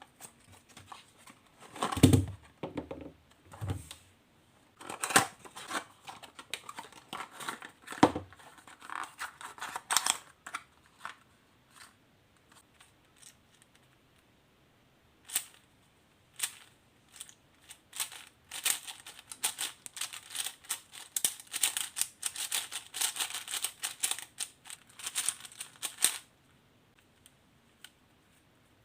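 Unboxing and turning a Meilong 5M stickerless 5x5 speed cube: a few dull thumps of packaging handling, then runs of rapid plastic clicking and clacking as the layers are turned, densest in a long run near the end.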